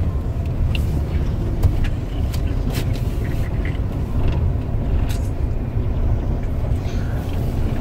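Car engine and tyres rolling slowly, heard from inside the cab: a steady low rumble with scattered short clicks and pops.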